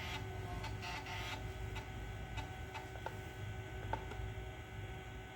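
Macintosh SE running: a steady hum with a faint constant whine, and faint regular ticking about three times a second.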